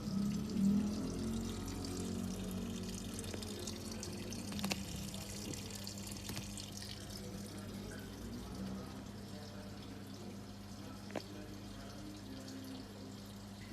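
Water running into the tub of a Midea 7.5 kg top-load washing machine as it fills, over a steady low hum, with a couple of faint clicks.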